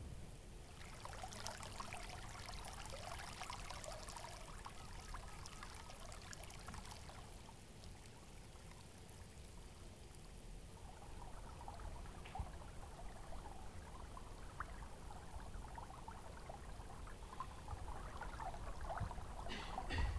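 Water pouring and trickling, then flowing along a stone-lined street channel, faint and steady; it dies down a little near the middle and picks up again toward the end.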